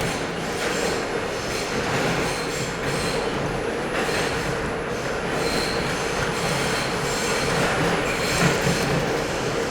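R42 subway train running at speed between stations, with a steady rumble of wheels on rail and high-pitched wheel squeal that comes and goes every second or so.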